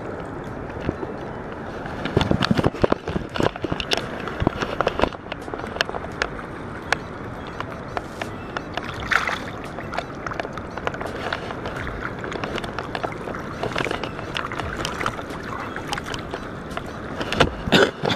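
Water splashing and sloshing as a caught asp is held in the river shallows by hand and let go, with irregular splashes and handling knocks over a steady rushing background. The splashing comes in a loud flurry about two seconds in and again near the end.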